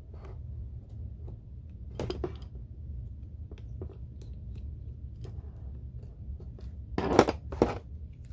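Light clicks and taps of a small screwdriver and tiny screws on an iPhone 6S Plus during disassembly, with two louder knocks about seven seconds in, over a steady low hum.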